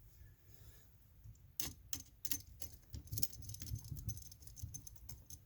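Phillips screwdriver tightening a wire under an electrical outlet's terminal screw: a scatter of small, irregular metallic clicks and ticks as the tool works the screw.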